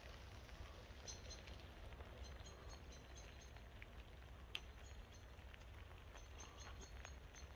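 Near silence: faint outdoor ambience with a steady low rumble, a few scattered small ticks, and one sharper click a little past halfway.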